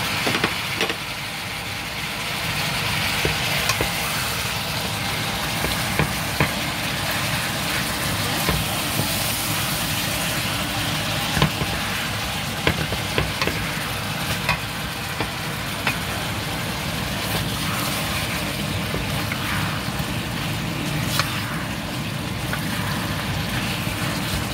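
Pork ribs, corn and bell pepper sizzling steadily in a nonstick wok as they are stir-fried, with irregular clicks and scrapes of the spatula against the pan.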